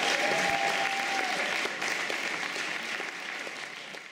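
Audience applauding after a song, the clapping fading out over the last couple of seconds.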